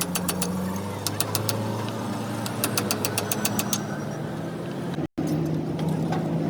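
A motor or engine running steadily, with bursts of rapid clicks over it.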